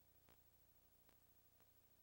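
Near silence: a faint steady hiss with three faint clicks.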